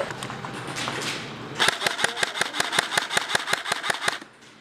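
Airsoft gun firing a long full-auto burst of rapid, evenly spaced shots, roughly ten a second, for about two and a half seconds, then stopping abruptly.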